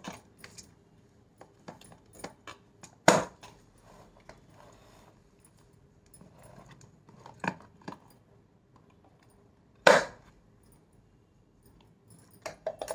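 Glass spice jars with metal caps being handled and set into a spice-rack stand: sharp clinks and knocks of glass on the stand and on other jars, one every few seconds with a quick run of them near the end, between soft clicks and rattles.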